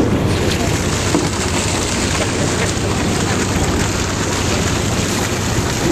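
Water splashing and churning against the side of a boat, a steady rushing noise with no let-up.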